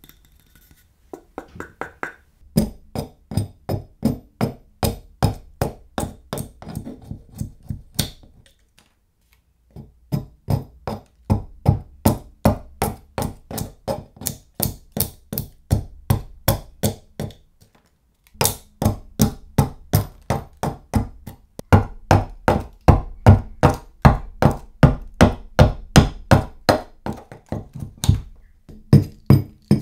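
Restored hatchet chopping into wood: rapid, evenly spaced thunks, about two or three a second, in three runs with brief pauses between them.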